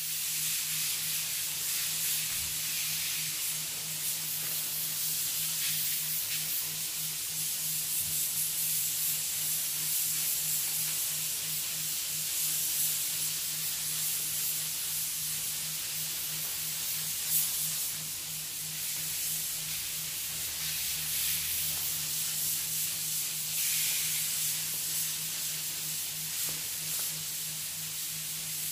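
Spray gun spraying paint: a steady hiss of air and atomised paint, with a low pulsing hum underneath.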